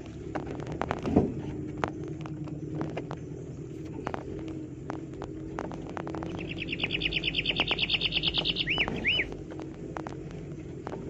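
A 4x4's engine running steadily at low speed, with scattered small clicks and knocks. About six seconds in, a bird gives a loud, rapid high trill for about two seconds, then two short slurred notes.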